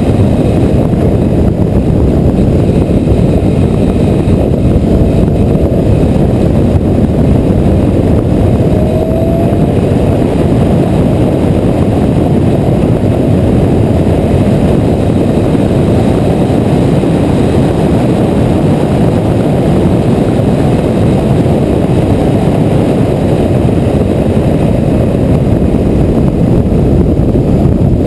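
Porsche 911 GT3 lapping a racetrack at speed: its engine noise buried in a loud, steady low rush of wind and road noise on the onboard camera's microphone, with little change in level.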